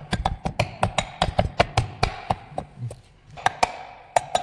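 Plastic-faced mallet knocking repeatedly on a small aluminium electric motor, seating its end cover on the stator housing. The blows come about five a second, each with a ringing metallic note. They pause briefly just past halfway, then start again.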